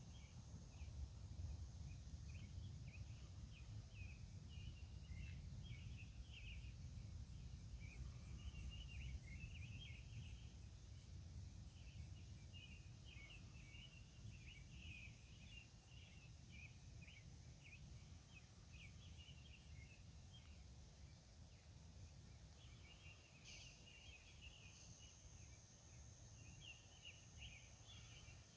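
Faint outdoor night ambience: a low, distant rumble with many short scattered chirps and a thin, steady high-pitched tone.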